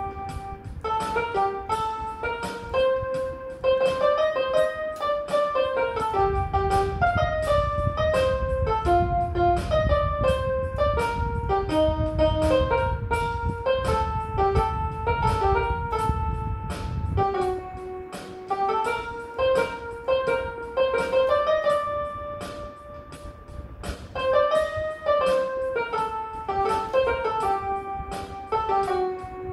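Portable electronic keyboard played with a piano sound: a flowing melody of quick single notes over lower held notes, at a steady tempo. A low rumble sits underneath for about ten seconds in the middle.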